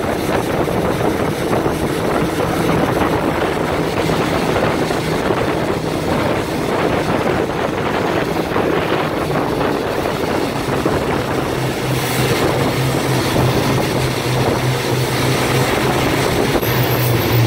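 Freightliner M2 rear-loader garbage truck driving on a wet road, heard from the back of the truck: steady road noise and tyre hiss under an engine drone that falls in pitch in a few steps.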